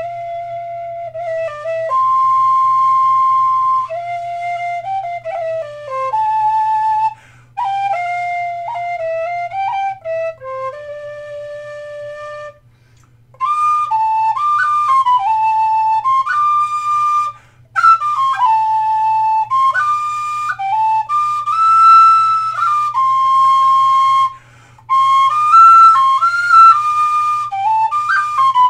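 An old Clarke tin whistle with a squared-off fipple, played solo: a slow air in long held notes, with short pauses for breath between phrases.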